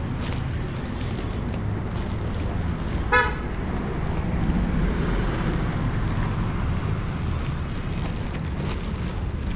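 A single short vehicle horn toot about three seconds in, over a steady low rumble of street traffic.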